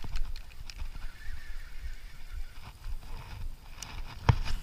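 Rod and baitcasting reel being handled in the hands: scattered light clicks and knocks over a low rumble of wind on the microphone, with one sharp, loud knock near the end.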